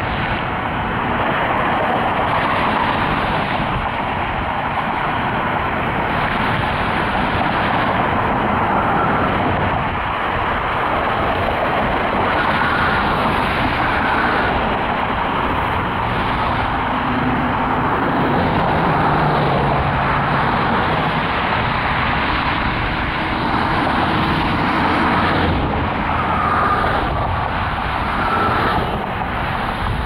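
Road traffic at an intersection: a steady wash of tyre and engine noise from cars going by.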